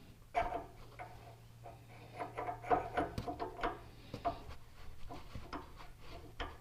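Metal hand tools clinking and knocking against metal parts as they are handled and fitted. The knocks come in an irregular string, some with a short ring, busiest in the middle.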